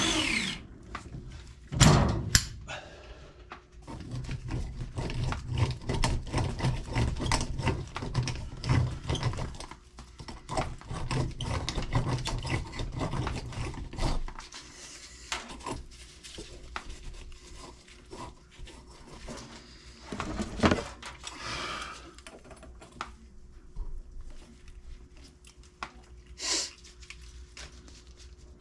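Irregular clicks, knocks and rattles of hand work on plumbing, with a few louder thumps about two seconds in, about twenty-one seconds in and near the end. A faint steady hum sits underneath.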